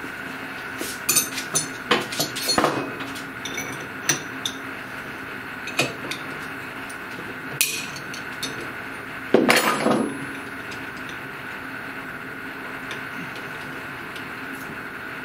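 Metal clicks and clinks of spanners on the CNC router spindle's collet nut while the cutting bit is changed, scattered at first, with a louder cluster of clinks about nine seconds in. A steady faint hum runs underneath.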